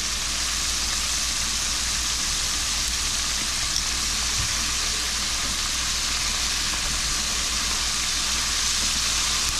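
Floured frog legs deep-frying in hot grease at about 350°F, a steady crackling sizzle.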